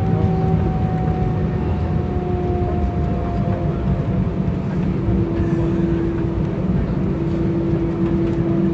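Airbus A320 cabin noise while the jet rolls on the ground after landing: a steady heavy rumble of the engines and airframe, with an engine tone that slowly falls in pitch over the first few seconds as the engines wind down.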